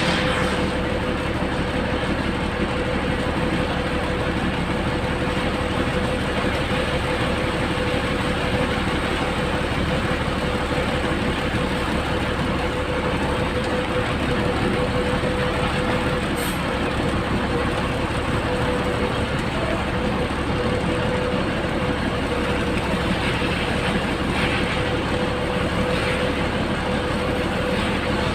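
A heavy truck running steadily, an unbroken mix of engine and road noise with a constant whining tone over it.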